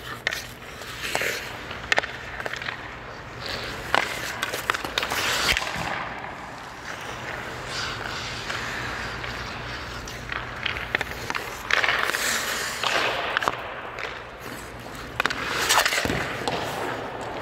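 Ice skate blades and goalie pads scraping and sliding on rink ice as a hockey goalie pushes across the crease and drops into slides, with several sharp knocks from sticks and pucks.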